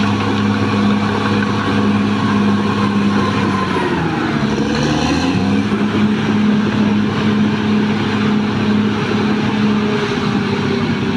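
Caterpillar D6R XL bulldozer's diesel engine running hard, its pitch dipping about four seconds in and climbing back a second or so later.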